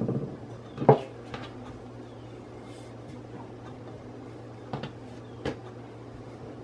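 A few sharp knocks of a wooden rolling pin on a granite countertop while dough is rolled out, the loudest about a second in and two more near the end, over a low steady hum.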